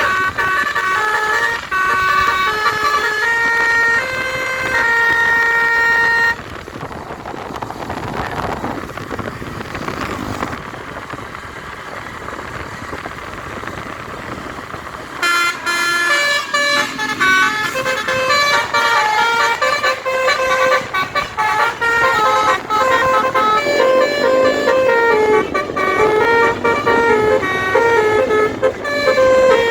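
Basuri multi-tone musical air horn on a tour bus playing 'telolet', quick runs of notes that step up and down like a tune. It stops about six seconds in, leaving only road and engine noise, and starts again about fifteen seconds in with a longer run of notes.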